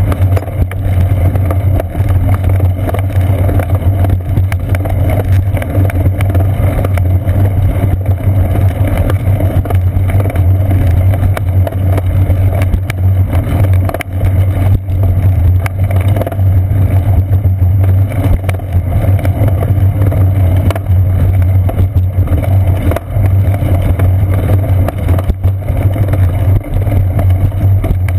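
Steady, loud rumble of wind and road vibration picked up by a seat-post-mounted GoPro Hero 2 on a moving bicycle rolling over a concrete path.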